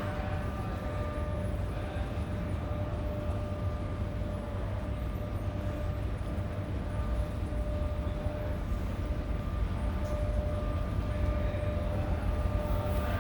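Train station background noise: a steady low rumble with a constant faint hum over it.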